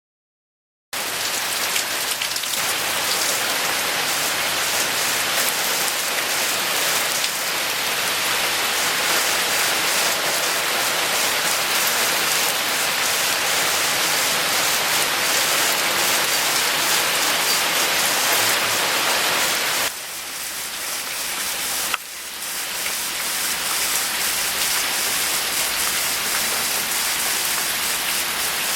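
Steady rain hissing down, coming in abruptly about a second in after silence. It turns quieter for about two seconds around twenty seconds in, then comes back as before.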